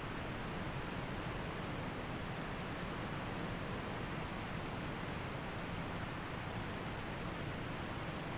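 Waterfall and creek water rushing steadily, an even roar of falling water.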